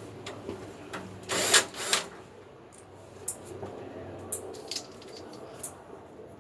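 A power drill runs in two short bursts about a second and a half in, backing screws out of a window air conditioner's casing. Scattered light clicks and knocks come from handling the unit.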